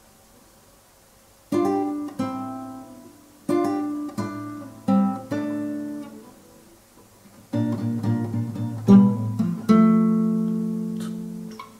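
Acoustic guitar strumming chords, starting about a second and a half in: separate strokes that ring and fade, with a short gap in the middle, and a last chord left to ring out near the end.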